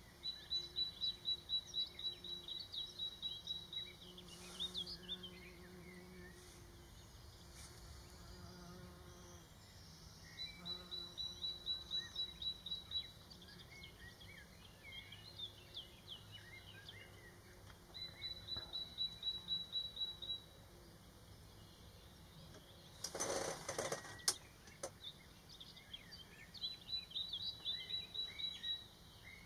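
Common kingfisher calling to its mate: four runs of rapid, high whistled notes at a steady pitch, each run lasting two to four seconds. Other small birds chirp faintly between the runs, and about three-quarters of the way through there is a short rush of noise with a sharp click.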